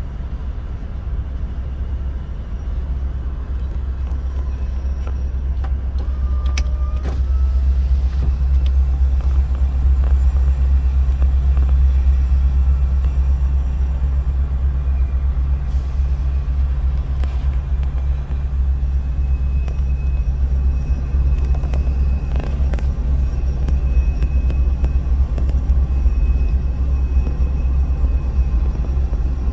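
Union Pacific freight train rolling past, heard as a steady, muffled low rumble from inside a stopped car; it swells somewhat after the first several seconds.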